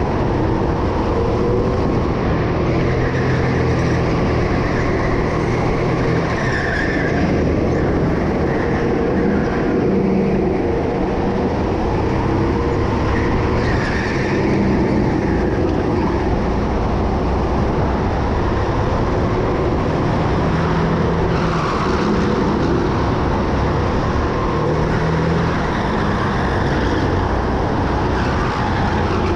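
Racing go-kart engine running continuously at speed, its pitch shifting up and down as it goes, over steady rumble and road noise.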